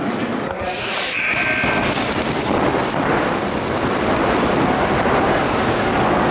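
A short buzzer tone sounds about a second in. A dense, continuous rattle of many paintball markers firing rapidly inside the indoor arena follows.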